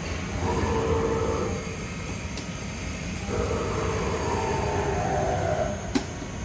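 PADOVANI LABOR E CNC lathe running: a steady machine hum with a whine that comes in twice, the second time falling slowly in pitch, and one sharp click near the end.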